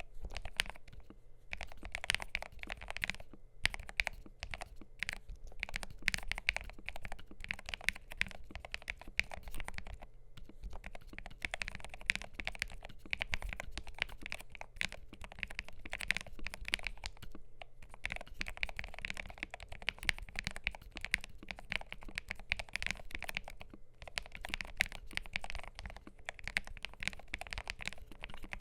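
Continuous fast typing on a MelGeek Made68 Pro magnetic keyboard with lubed Gateron KS-20 Magnetic White switches, aluminium plate and ABS double-shot keycaps: a dense run of keystroke clicks with a few short pauses.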